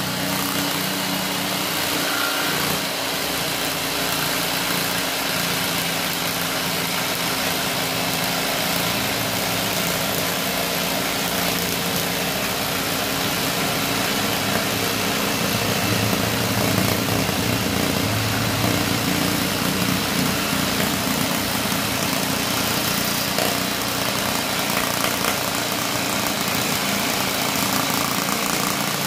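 Electric jigsaw running steadily, its reciprocating blade cutting through a clear acrylic sheet.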